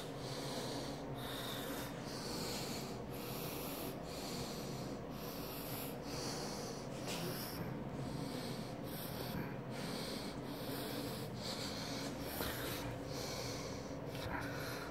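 Soft, rhythmic rustling and handling noise at a phone's microphone, swelling about twice a second as the phone is carried, over a steady low room hum.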